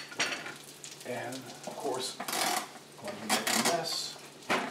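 A spatula scraping and clinking against a frying pan as salmon cakes are lifted out onto a plate, in irregular sharp clatters, strongest a couple of seconds in.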